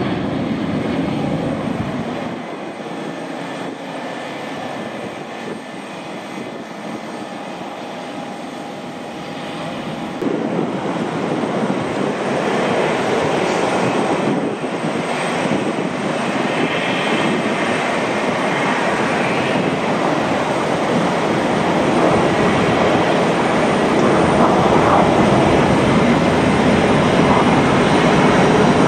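Jet engine noise from a McDonnell Douglas MD-82 taxiing: its rear-mounted Pratt & Whitney JT8D turbofans make a steady roar with a faint whine. The sound gets louder about ten seconds in and keeps building.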